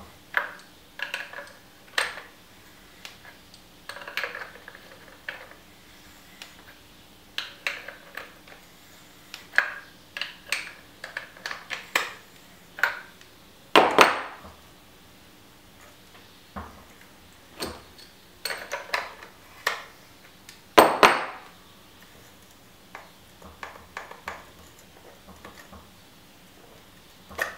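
Metal tools and fork parts being handled on a workbench while a RockShox Boxxer fork's air-side top cap is unscrewed: irregular clicks, clinks and taps, with two louder knocks, about halfway through and about three quarters of the way through.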